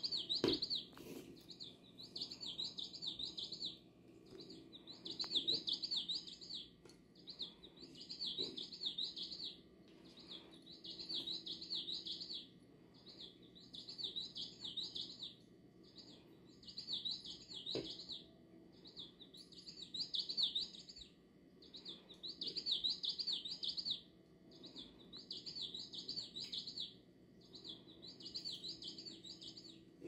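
Electronic bird cat toy playing recorded bird chirps in short, regular bursts about a second and a half long, repeating every two to three seconds. A faint low hum from the spinning toy runs underneath, with a few knocks as it is batted.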